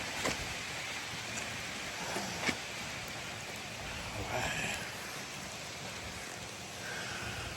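Steady rain coming down hard, an even hiss with a couple of sharp taps of drops close by.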